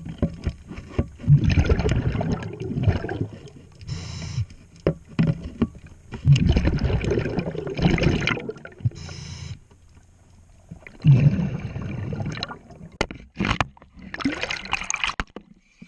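A scuba diver breathing underwater through a regulator: a short hiss on each inhale, roughly every five seconds, followed each time by a longer rush of exhaled bubbles. A few sharp clicks sound near the end.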